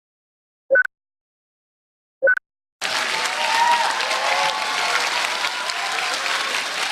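Two short pitched tones, then about three seconds in a studio audience bursts into sustained clapping mixed with laughter.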